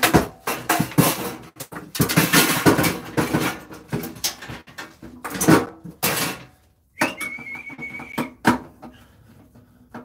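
Sheet-steel microwave casing being wrenched off by hand, a fast run of metal clanks, knocks and rattles as the panel is pulled free and tossed aside. A little later comes a steady high tone for about a second, followed by a few light clicks.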